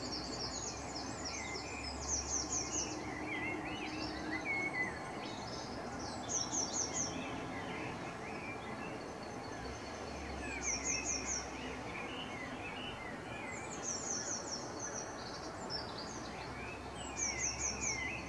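Birds singing: one bird repeats a short, fast, high trill of about five notes every four seconds or so, while others chirp more loosely at a lower pitch. A steady background noise runs underneath.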